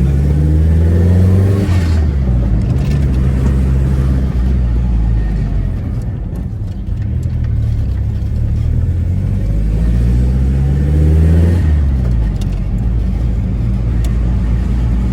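Turbocharged Chevrolet Corsa engine accelerating hard twice, its pitch climbing and then dropping suddenly at about 2 seconds and again near 12 seconds as the throttle is lifted. Each lift is followed by a short crackly chatter, the turbo flutter the car is set up to make.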